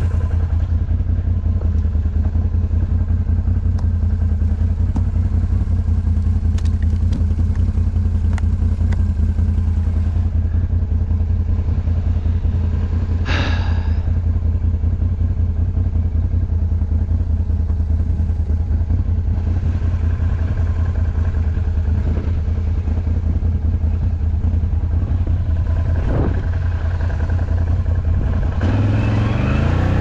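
Off-road vehicle engine running steadily under way, with clattering and knocks from the rough trail. The engine picks up and rises in pitch near the end.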